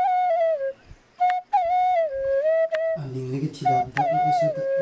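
Background music: a flute melody sliding between long held notes, with a short break about a second in. Lower accompanying tones join about three seconds in.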